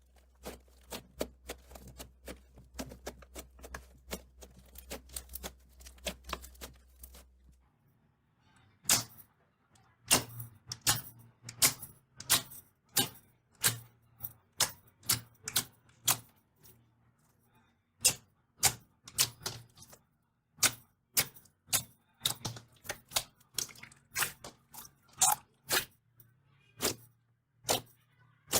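Slime being pressed and worked by hand, making sharp clicking and popping sounds. For the first eight seconds or so the clicks come rapid and dense over a low hum. After a short break they are louder and more spaced, a few each second.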